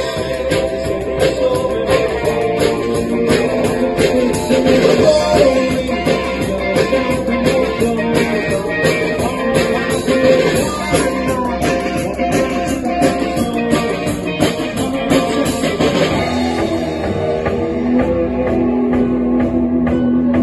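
Live rock band playing: strummed ukuleles, bass guitar and drum kit, with singing. About three-quarters of the way through, the drumming thins out and a low note is held.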